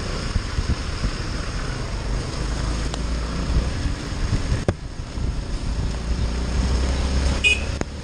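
Motorcycle riding on a rain-soaked road: engine running under a steady low rumble of wind on the microphone and the hiss of wet tyres and rain. There is a brief click past the middle and a short high chirp near the end.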